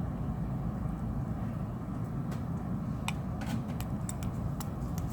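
Steady low background hum with a handful of small, sharp clicks from tools and parts being handled while a smartphone is disassembled.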